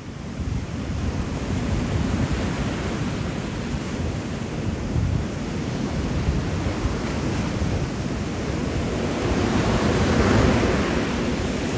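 Sea surf washing onto a beach, with wind buffeting the microphone; the wash swells a little about ten seconds in.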